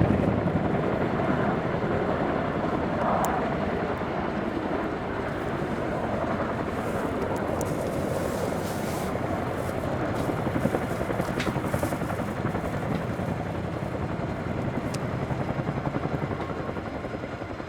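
CH-47J Chinook tandem-rotor helicopter with its rotors beating in a rapid chop, growing gradually quieter.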